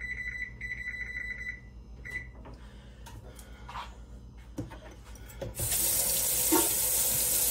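Electronic beeps from an oven control panel as the oven is set to preheat to 400, several short beeps in the first two seconds. From about five and a half seconds in, a kitchen faucet running steadily into a sink, louder than the beeps.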